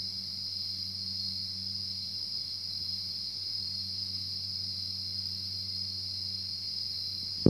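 Steady, unbroken high-pitched chirring, like a night chorus of crickets, over a steady low hum. This is an unexplained night noise that has gone on for hours and is now quieter than before. A single brief knock comes at the very end.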